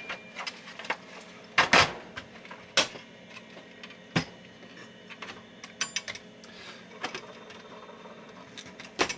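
Scattered clicks and knocks from a Commodore 64's plastic case and board being handled, irregular, the loudest a double knock about two seconds in.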